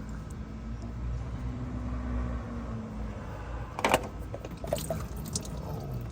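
Motor oil running and trickling into a drain pan while the old oil filter is worked loose, with one sharp knock about four seconds in and a few lighter clicks after it.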